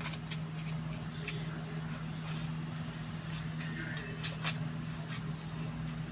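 Light clicks and scrapes of a plastic spoon against a bamboo-leaf wrapper and rice dough as the leaf is filled and folded, over a steady low hum.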